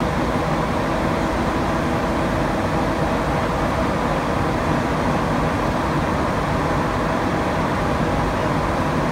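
Cabin noise inside a Montreal Azur rubber-tyred metro car running through the tunnel between stations: a steady rumble and hiss with a faint even whine underneath.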